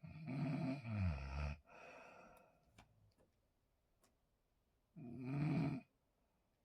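A person snoring: two loud snores about four seconds apart, the first longer with its pitch sliding down near its end, followed by a quieter breath.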